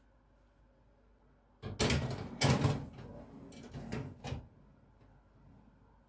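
Metal baking tray carrying earthenware dishes of rice pudding slid into the top shelf of a Bosch oven: a rattling scrape with a few clinks, starting about two seconds in and lasting nearly three seconds.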